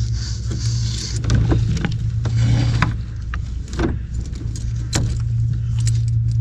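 Small metal parts and tools being handled: scattered clicks and light metallic clinks over a steady low hum.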